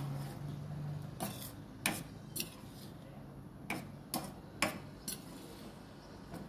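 Steel spatula knocking against the sides of a stainless steel kadai while stirring thin dal, about seven sharp clinks at uneven intervals.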